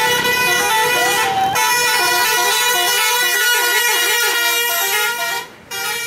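A bus's 'telolet' multi-tone musical horn playing a quick, stepping tune of several notes, over and over. It breaks off briefly about one and a half seconds in and again near the end.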